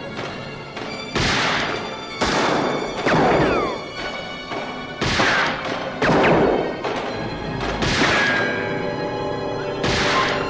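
Orchestral film score with about six heavy gunshots over it, one every second or two, each ringing out for about a second in an echoing stone hall.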